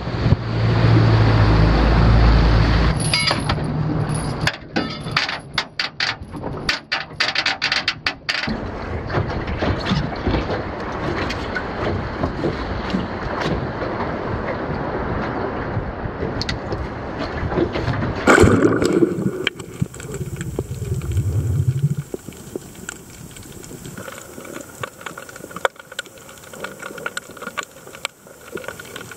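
Wind buffeting the microphone over lapping water aboard a small boat, then a sudden splash about two-thirds of the way through as a spearfisher rolls into the sea. It is followed by the muffled hiss and fine crackle of the sound underwater.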